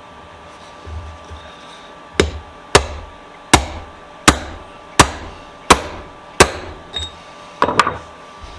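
A hammer striking a steel punch with about eight sharp blows at a steady pace, each ringing briefly, driving a part of the bench vise home until it sits flush. The blows begin about two seconds in, and a softer double tap comes near the end.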